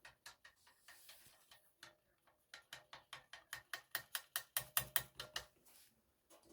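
Faint, sharp mechanical clicking while working on a partly dismantled washing machine: a few scattered clicks, then a steady run of about five clicks a second in the middle that grows louder before stopping.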